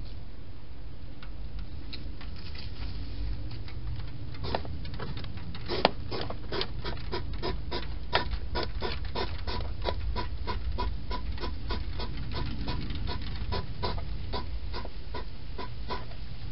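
Hedgehog chewing food in a plastic feeding box: a fast run of sharp chewing clicks, about four or five a second, starting about four seconds in, over a steady low hum.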